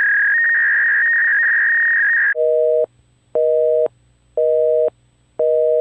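A loud steady high-pitched electronic tone that cuts off about two seconds in, followed by a telephone busy signal: a low two-note tone beeping about once a second.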